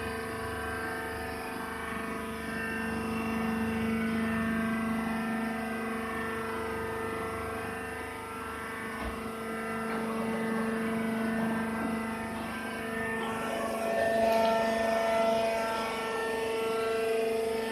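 Hydraulic press baler's motor and hydraulic pump running with a steady droning hum. The hum gets a little louder about three-quarters of the way in.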